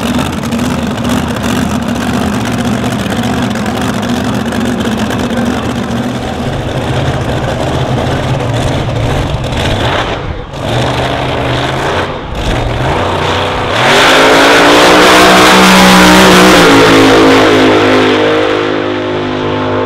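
Supercharged V8 of a front-engined slingshot dragster idling with a rough, steady lope. About fourteen seconds in it launches at full throttle, the loudest part, its pitch climbing steeply through the run before it eases off down the strip near the end.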